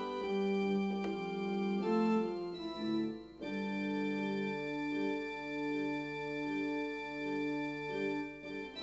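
Background music of slow keyboard chords, with notes held long and a chord change about three seconds in.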